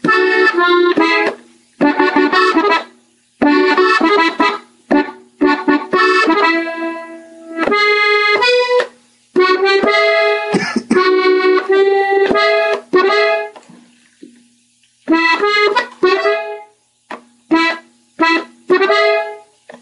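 Gabbanelli button accordion playing a melody slowly, in short runs of notes broken by brief pauses, with a low note held under several of the runs.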